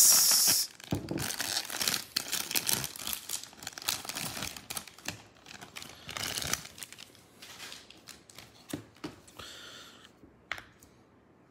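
Plastic wrapper of a 2021 Bowman baseball card value pack being torn open with a sharp rip at the start, then crinkling and rustling as its cardboard insert and the foil packs inside are pulled out. The rustling thins out toward the end, with a few light clicks near the end.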